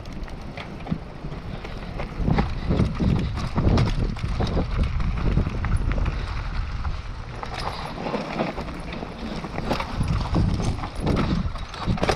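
Mountain bike riding fast down a dirt and gravel trail: tyres crunching over grit and twigs, and the bike rattling and knocking irregularly over bumps, over a constant low wind rumble.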